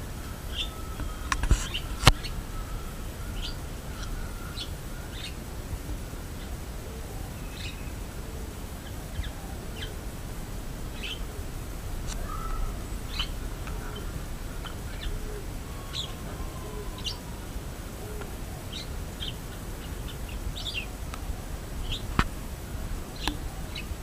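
Small birds chirping in short, scattered calls over a low steady background rumble, with two sharp clicks, one about two seconds in and one near the end.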